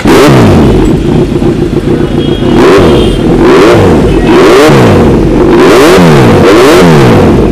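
Kawasaki Z900 inline-four engine, breathing through an aftermarket carbon-fibre slip-on silencer, catching suddenly and then revved in quick throttle blips, about five times. The pitch rises and falls back toward idle between blips.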